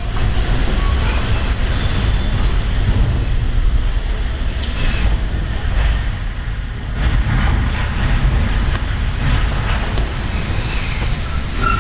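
Steady rain hiss over a low rumble, picked up by a security camera's microphone.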